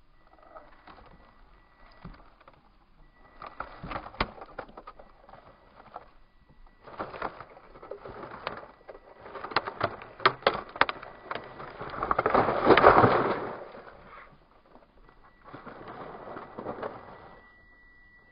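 Radio-controlled scale rock crawler pushing through snow and dry reed stalks: irregular crunching and crackling with sharp snaps as its tyres climb and the reeds bend, loudest a little past the middle. A faint high steady whine comes and goes.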